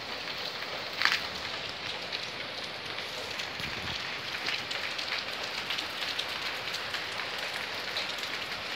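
Heavy rain falling steadily, an even dense hiss of drops, with one sharp tick about a second in.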